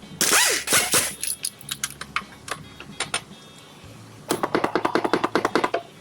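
Metal hand tools clattering and clinking, then a rapid run of ratchet-wrench clicks, about a dozen a second, for a second and a half, over background music.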